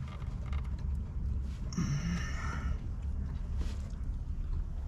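Dashboard plastic creaking for about a second, roughly two seconds in, as the dash speaker's wiring connector is worked loose by hand, over a low steady rumble.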